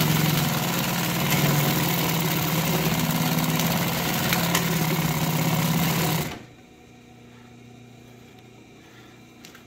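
Consew 226 industrial walking-foot sewing machine running steadily, stitching through denim with a long stitch, then stopping abruptly about six seconds in. After it stops, only a faint steady hum of the clutch motor is left.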